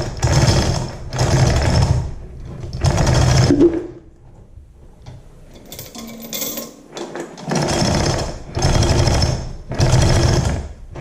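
Hand-operated chain fall (manual chain hoist) being worked to lower a tractor cylinder head: a fast clattering rattle of chain and ratchet in short pulls of under a second, about one a second, with a pause of a few seconds in the middle.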